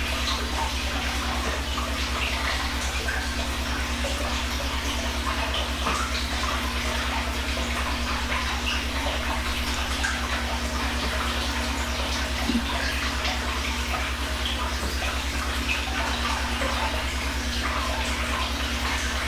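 Steady rushing noise with a low hum under it and a few faint light ticks.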